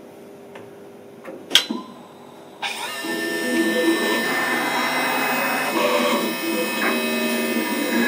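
DATRON M8Cube CNC mill engraving a butternut pumpkin on its fourth axis. A sharp click, then about two and a half seconds in the machine starts suddenly: a steady whine with shifting lower tones as the axes move.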